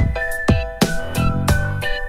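Intro music with a steady drum beat, about three beats a second, under a high melody line.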